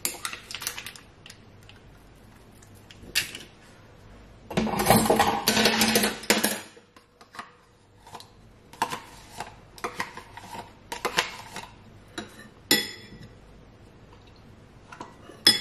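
Food preparation at a kitchen counter: utensils clicking and clinking against dishes in irregular taps, with a longer rustling, scraping stretch about five seconds in.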